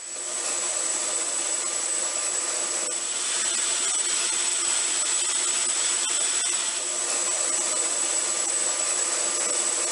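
Steady high turbine whine over a hiss, with a few faint clicks.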